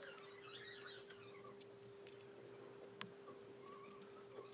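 Faint clicks and scrapes of a metal spatula mixing lipstick on a stainless steel mixing palette, over a steady hum.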